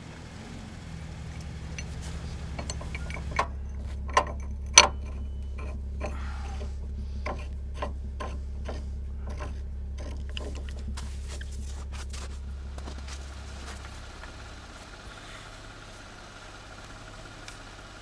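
A vehicle engine idling with a steady low hum while metal winch-rigging hardware is handled: a run of clicks and clanks, the loudest three about three and a half to five seconds in. The hum fades out about fourteen seconds in.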